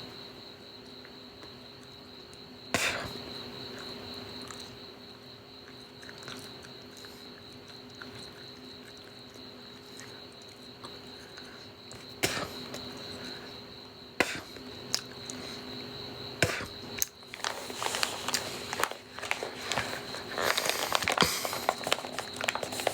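Crickets chirping in a steady high trill, with a few sharp knocks and, over the last five seconds, a run of crinkling and rustling handling noise.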